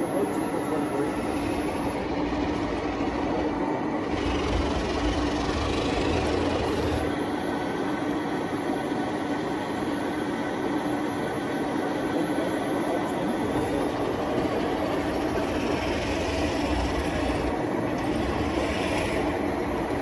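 Remote-control 1/16 scale Leguan bridge-layer tank model running as it extends its bridge span: a steady mechanical hum with a constant tone, and a deeper rumble that swells twice.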